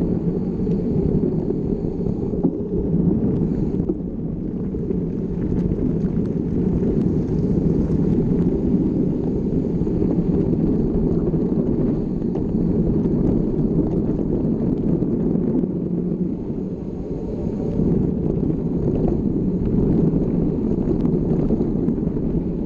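Wind buffeting a mountain biker's camera microphone while riding, a steady low rumble with the bike's rattle over the trail underneath.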